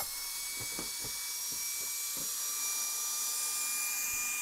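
Battery-powered LED-wall module vacuum suction tool running with a steady high-pitched whine and hiss of air as it holds a module by suction so it can be popped off the wall. A few soft knocks come in the first two seconds.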